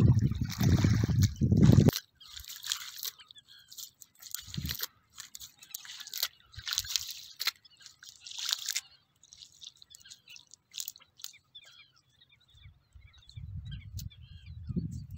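Wet cast net being hauled from shallow water and handled on mud: a loud rush for about the first two seconds, then scattered drips, trickles and small wet crackles, with a low rush returning near the end.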